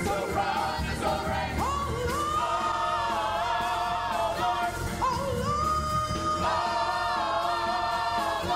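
Gospel praise team of several singers singing with instrumental backing, with long held notes a couple of seconds in and again past the middle.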